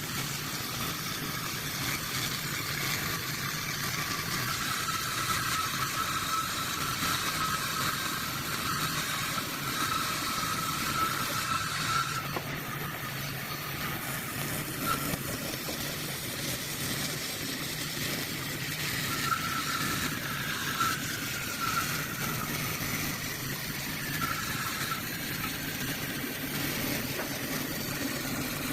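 A motor running steadily with a low hum and a high whine that wavers in pitch and fades in and out.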